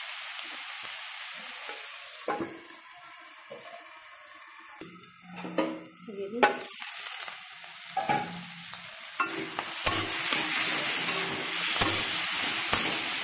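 Curry-leaf masala with tomato and boiled potato sizzling in oil in a metal kadai. About two seconds in the sizzle goes muffled and quieter, with the aluminium lid on the pan. A few metal clinks follow, then the sizzle comes back loud near the end with a spatula scraping and stirring against the pan.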